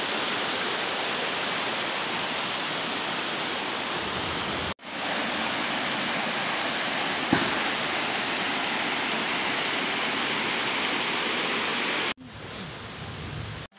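Shallow rocky stream rushing over stones and gravel in a steady, even rush of water. It breaks off abruptly about five seconds in and resumes at once, then drops to a quieter stretch near the end.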